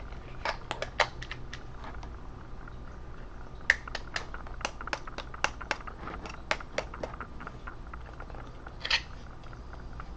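Crosman Vigilante air pistol being handled: many short sharp clicks and knocks in scattered runs, with a longer, louder rattle about nine seconds in.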